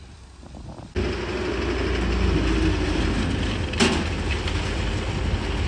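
Kubota 105X combine harvester running: quieter at first, then its engine and machinery cut in loud and steady about a second in, with one sharp knock near the middle.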